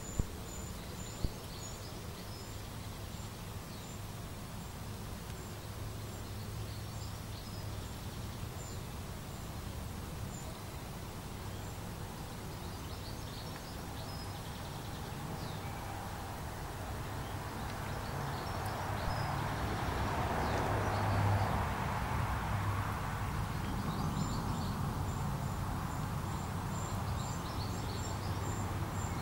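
Outdoor pond-side ambience: scattered high bird chirps and a high, rapidly pulsing insect trill at the start and again near the end, over a low steady hum. A broad rushing noise swells up a little past the middle and eases off again.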